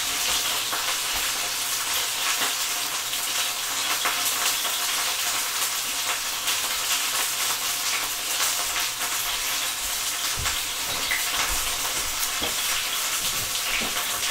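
Chicken thighs sizzling in hot oil in an uncovered sauté pan: a steady frying hiss with fine crackling pops.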